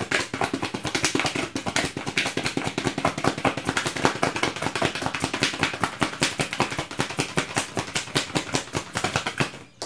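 A deck of tarot cards being shuffled by hand: a rapid run of crisp card clicks, several a second, that stops near the end.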